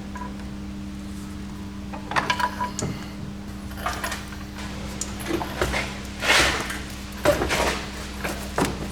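Scattered metallic clanks, clinks and knocks of tools and car parts being handled while a transmission is lowered out of a car, over a steady low hum; a longer scraping rush comes about six seconds in.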